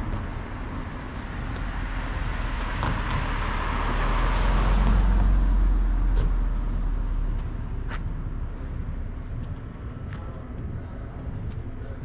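A car passing by on a city street: its tyre and engine noise swells to the loudest point about five seconds in, then fades.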